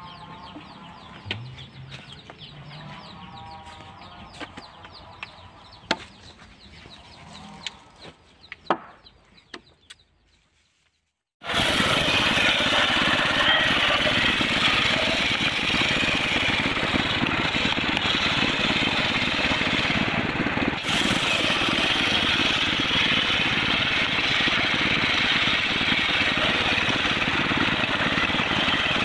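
Chickens clucking, with a few sharp clicks. After about a second of silence, a loud, steady machine sound begins abruptly: a homemade circular saw machine running.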